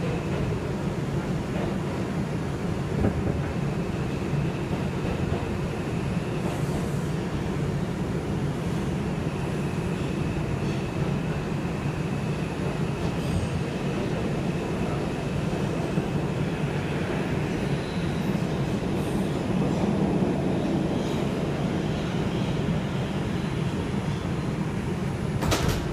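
Inside an R142 subway car running through the tunnel: a steady rumble of steel wheels on rail, with a faint thin high whine through the first half. A single sharp knock comes near the end.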